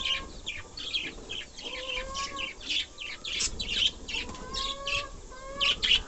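Budgerigars chattering: a rapid, continuous run of short, sharp chirps, with a few longer whistled notes mixed in.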